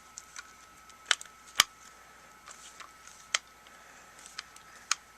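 Sharp clicks and taps from the plastic housing and small internal parts of a cordless screwdriver being handled and fitted together, about four distinct clicks with the loudest about one and a half seconds in.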